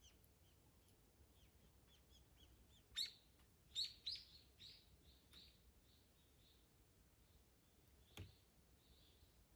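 A small bird calling in a series of short, high chirps, louder and quicker about three seconds in, then slowing and fading. One sharp knock or pop is heard near the end.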